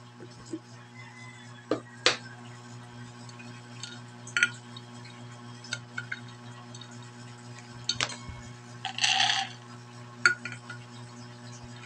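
A plastic scoop clinks and knocks against a glass jar as raw peanuts are scooped out. There are several separate sharp clinks, and a short rattle of peanuts tipped into a pot a little after nine seconds in.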